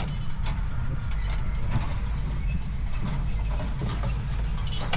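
A large engine running steadily with a low rumble, with a few light clicks and knocks over it.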